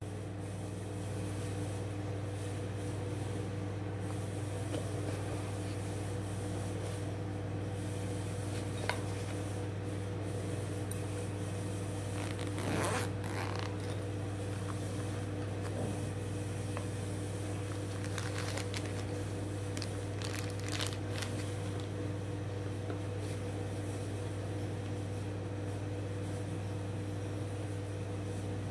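Knife unboxing handling sounds: a fabric knife pouch's zipper is drawn open once, about halfway through, with a few shorter rustles and a click from the packaging around it. A steady low hum runs underneath throughout.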